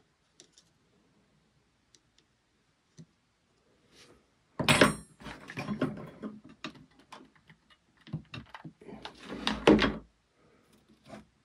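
Hot glue gun and hand tools being handled on a wooden workbench: faint ticks at first, then a sharp knock with a brief metallic ring about four and a half seconds in, irregular clattering and knocks of handling after it, and another loud knock just before the end.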